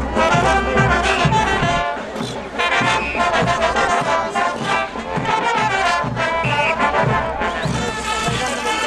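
Brass band playing dance music, with trumpets and trombones over a steady low drum beat at about two to three beats a second.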